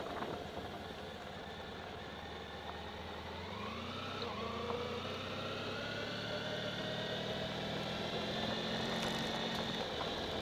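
Motorcycle engine running at low speed. Its pitch rises briefly a few seconds in and then holds steady, while wind noise dies away at the start.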